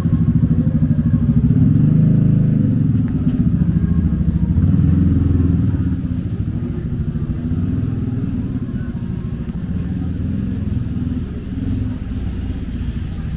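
A motor vehicle engine running in street traffic: a low rumble with a rapid even pulse, louder in the first half and easing off after about six seconds.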